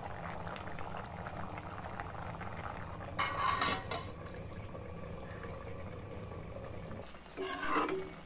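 Watermelon juice and rice bubbling at a steady boil in a steel pan. About three seconds in, a steel lid clatters as it is set on the pan, and near the end a metal spoon clinks and scrapes in the pan.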